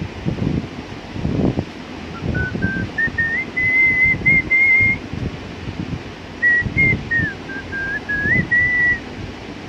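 Someone whistling a slow tune, a single clear note at a time. A phrase climbs in pitch from about two seconds in and breaks off around the middle, then a second, wavering phrase follows near the end. Low rumbling noise on the microphone runs underneath.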